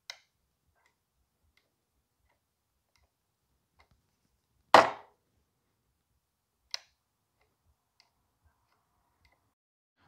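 Lid-interlock micro switch in a DeWalt DW735 thickness planer clicking as it is pushed with a screwdriver: one sharp, loud click about five seconds in and a lighter click about two seconds later, with faint ticks in between.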